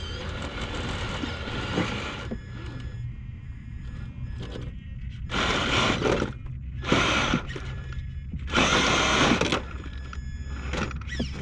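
Traxxas TRX4 RC crawler's electric motor and geared drivetrain whirring in several bursts of throttle, the tyres scrabbling on rock. The truck is hung up on its rock slider and can't climb.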